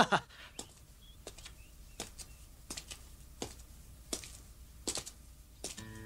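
Footsteps of a man walking closer, sharp separate steps coming about every half second. A held music chord comes in near the end.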